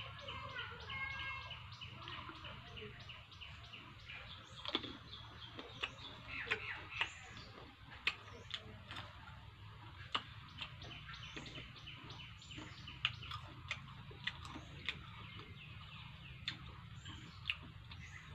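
Faint chewing and mouth clicks from someone eating small round fruits, with birds chirping in the background.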